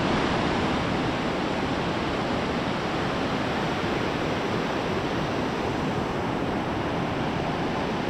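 Fast-flowing river water rushing, a steady, even noise.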